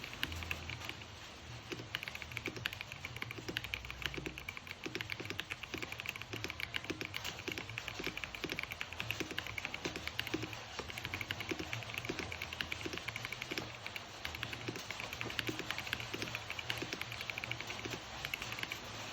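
Vortexseries GT-65 mechanical keyboard with Avlion Bulu Sky switches being typed on at a steady, fast pace, a continuous run of key clicks several a second.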